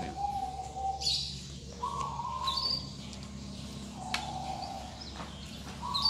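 White-rumped shama singing in its cage: clear whistled phrases, a held low whistle paired with a short high note, repeating about every two seconds over a steady low hum.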